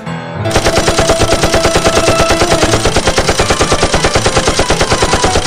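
Short piano notes, then about half a second in a machine gun opens up, firing one long, continuous, rapid burst of evenly spaced shots.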